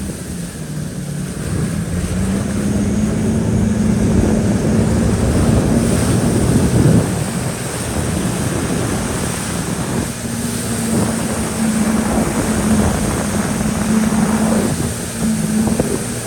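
Jet ski engine running under way, its pitch rising over the first couple of seconds and then holding steady, easing off for a few seconds past the middle before settling back, with wind buffeting the microphone and water rushing.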